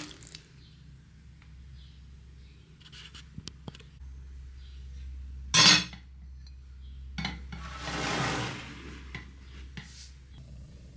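Kitchenware being handled: scattered clinks and knocks of dishes and cutlery, with one louder clatter a little past halfway and a brief swelling rushing scrape about two-thirds of the way through.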